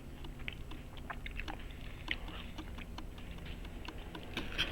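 Close-up chewing of crispy panko-breaded pan-fried sand dab: scattered small clicks and crunches, over a low steady hum.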